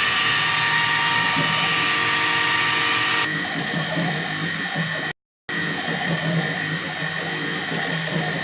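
Optimum BF20L Vario CNC milling machine running: a steady mechanical whine with several high steady tones that drop away about three seconds in, leaving a rougher machine noise. The sound breaks off for a split second about five seconds in.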